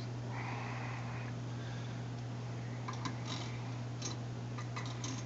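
Steady low hum with a scatter of faint, light clicks and taps in the second half, as a small metal part is handled on the bench.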